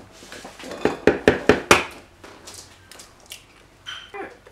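Eggs tapped against the rim of a plastic mixing jug and cracked open: a quick run of about five sharp taps about a second in, then a few fainter clicks of shell.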